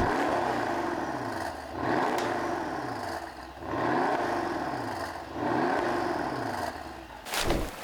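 Mercedes-AMG CLS 63 S twin-turbo V8 on its stock exhaust, revved in repeated blips that rise and fall about three times after a sharp opening burst.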